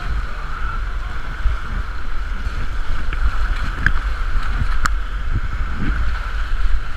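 Rushing whitewater of a big river rapid, heard from a raft in it, with a heavy low rumble of water and wind buffeting the action camera's microphone and a couple of sharp clicks a little past the middle.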